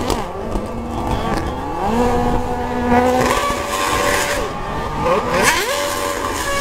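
Racing car engine revving at high rpm. Its pitch climbs about two seconds in and holds high, drops away around five seconds, then climbs and holds again near the end.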